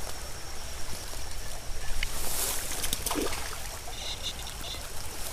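Small creek trickling over a shallow riffle, with wind rumbling on the microphone. A few brief clicks sound about two to three seconds in.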